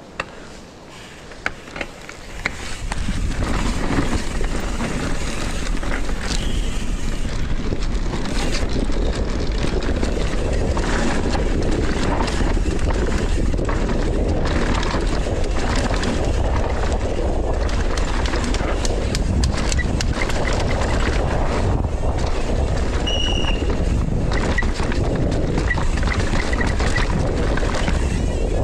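Downhill mountain bike descending a dusty, rocky dirt track at speed, heard from a chest-mounted GoPro: a steady rush of wind on the microphone with a deep rumble of tyres on dirt and the bike rattling and knocking over roots and rocks. The first couple of seconds are quieter, then the noise jumps up as the bike gets going, and there is a brief high squeak about two-thirds of the way through.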